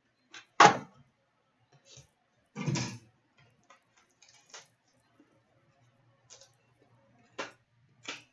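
Handling noises from opening a box of trading cards on a glass-topped counter: a series of short, separate knocks and rustles as the cardboard box and packaging are moved and set down. The loudest knock comes about half a second in, a longer rustling knock around three seconds in, and smaller taps follow.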